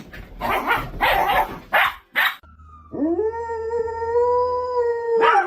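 A dog gives a few short barks. After a brief break it lets out one long howl that slides up at its start and then holds steady.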